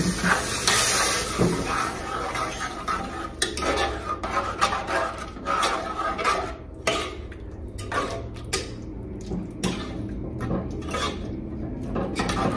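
A metal spoon scraping and clinking against the inside of a pressure cooker as ground spices are stirred in it over the flame, in many irregular strokes.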